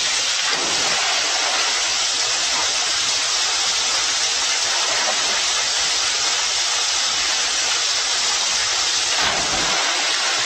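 Water pouring down a pool waterslide and splashing into the pool: a steady rushing hiss.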